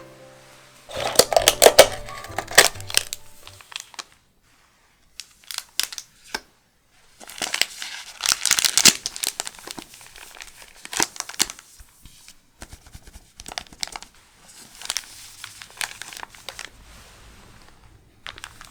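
Foil wrapper of a Pokémon booster pack crinkling and tearing as it is handled and opened, in bursts with brief pauses. The loudest bursts come about a second in and again around eight seconds in.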